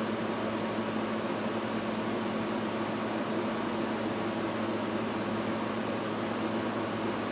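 Steady whir of a running fan with a low, constant electrical hum underneath, unchanging throughout.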